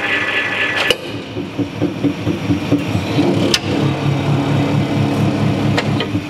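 The 200-ton hydraulic press's pump running with a steady hum under pressure, then a sharp click about a second in, after which it runs lower and rougher as the ram lifts, with a few more clicks.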